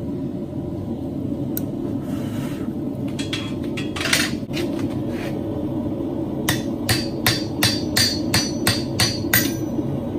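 Hand hammer striking steel on an anvil while marking a small forged feather: a few scattered blows, then a steady run of about nine strikes, roughly three a second, over a steady low hum.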